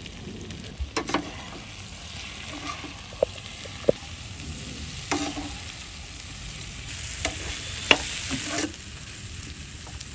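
Chicken pieces sizzling as they fry in a pan while a metal slotted spatula stirs them, with a few sharp clinks of metal on the pan. A louder stretch of scraping and stirring comes near the end.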